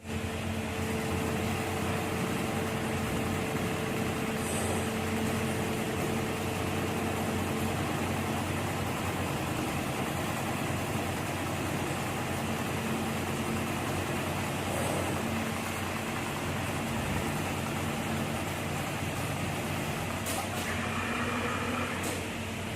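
HEMS 250 CNC programmable pattern sewing machine running with a steady motor hum, and a few short clicks near the end.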